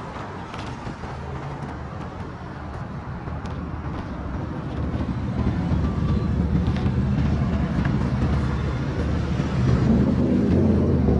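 Road traffic at an intersection: cars and a pickup truck driving past, a low engine and tyre rumble that grows louder over the second half.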